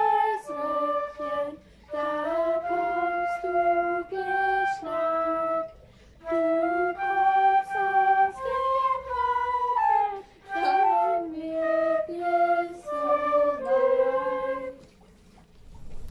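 Transverse flutes playing a slow melody of held notes together, the music ending about fifteen seconds in.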